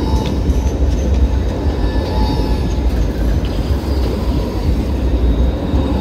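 Light rail tram passing at close range: a steady, heavy low rumble with faint high whines above it.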